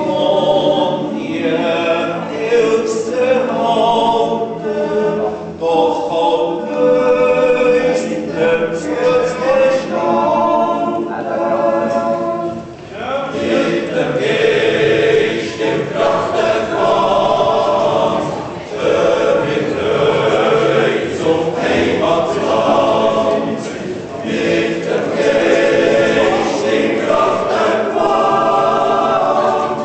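Swiss yodel-club choir of men and women singing a cappella in sustained chords, with a brief break about twelve seconds in before the voices come in again.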